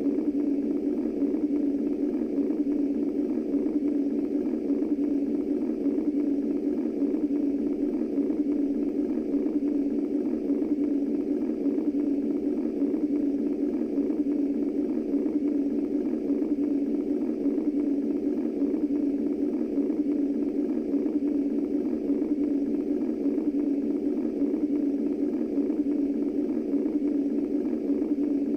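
Womb white noise from a baby sound machine: a steady, low-pitched noise with no beat or change.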